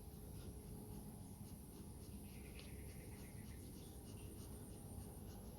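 Faint, irregular light scratching and ticking over a low steady room hum.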